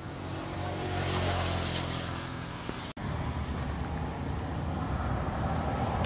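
A motor engine hums steadily, its pitch sinking slightly, then cuts off abruptly about three seconds in. After that there is a low, rough rumbling noise.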